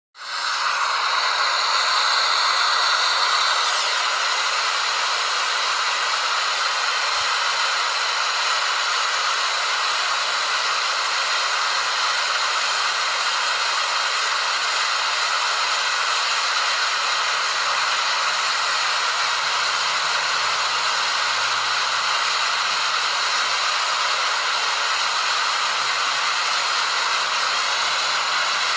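Waterfall: a steady rush of falling water that rises in quickly at the start.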